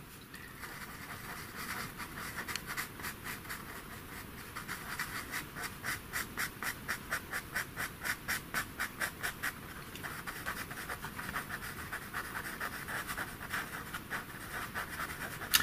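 Pastel pencil scratching across pastel paper in quick, short, repeated strokes while fine hairs are drawn into a cat's ear. The strokes come several a second, most regular and dense in the middle.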